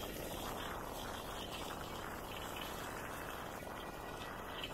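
Steady rushing, crackling noise of a bicycle ride, made of wind and rolling noise, with no single event standing out.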